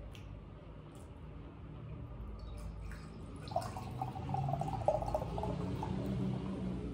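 Carbonated cola poured from a can into a glass, starting about halfway through and running on steadily.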